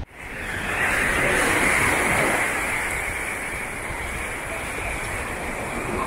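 Ocean surf on a sandy beach: a steady rush of breaking waves that swells up over the first second or two, then carries on evenly.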